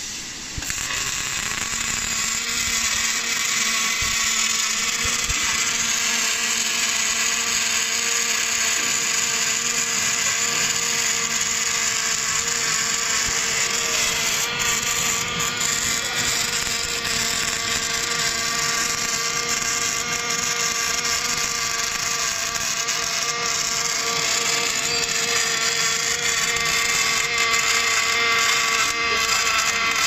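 Robotic gas-shielded wire-feed (MIG/MAG) welding arc making a steady hiss as the torch runs a seam on a steel bucket, over a steady pitched machine hum. The arc strikes about half a second in and grows a little louder near the end.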